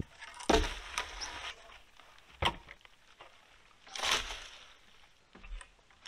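Wooden roof poles knocking and clattering as they are handled and dropped onto a pile of poles: a handful of separate wooden knocks a second or more apart, the loudest about half a second in.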